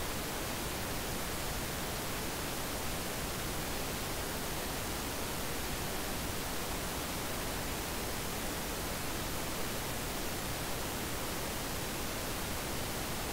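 Steady, even hiss with no other sound: the noise floor of the recording microphone.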